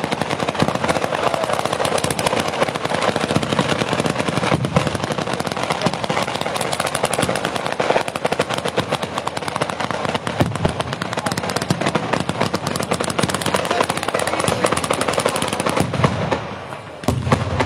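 Fireworks display: a dense, unbroken run of rapid crackling reports from fireworks fired at ground level, easing briefly near the end before a few heavier bangs.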